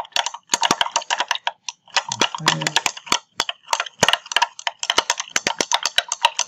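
Glass stir rod clinking and scraping against the inside of a glass beaker as salt is stirred into water, a fast, irregular run of ticks.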